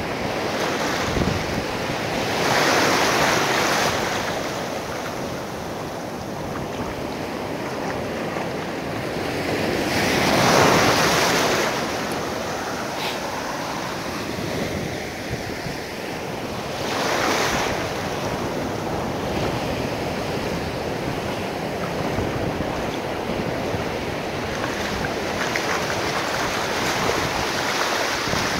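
Ocean surf washing up the shallow beach, a steady rush with three louder swells as waves break and run in.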